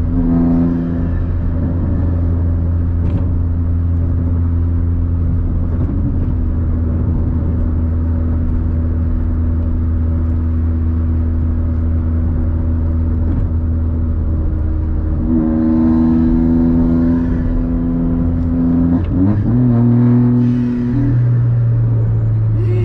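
VW Up's engine running steadily at highway speed, heard inside the cabin as a constant drone with road noise. The engine note grows louder about 15 seconds in, then swoops and settles higher near 19 seconds as the revs rise.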